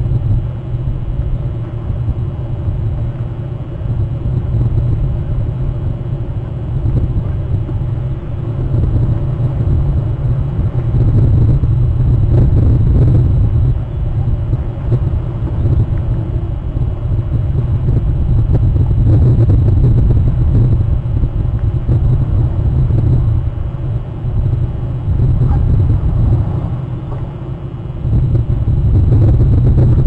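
Wind buffeting an outdoor webcam's microphone: a low, uneven rumble that swells and dips throughout.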